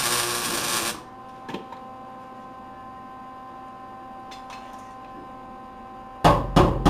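Arc welding on a sheet-steel patch panel: a loud crackling sizzle that stops about a second in, leaving a steady electrical hum. Near the end come two loud knocks.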